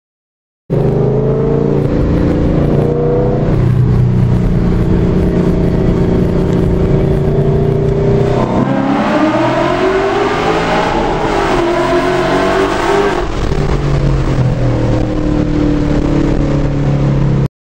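A 2011 Mustang GT's 5.0 Coyote 32-valve V8, fitted with a cold-air intake, tune and full stainless exhaust, heard from inside the cabin while driving. It runs steadily at first; about halfway through it accelerates hard with the pitch rising for about four seconds, then settles back to a steady cruise.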